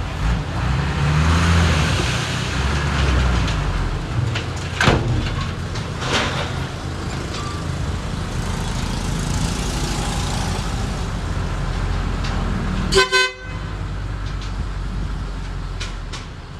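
Diesel engines of a small bulldozer and dump truck running steadily with a low rumble, with a couple of sharp metallic knocks. Late on, a vehicle horn gives one short toot.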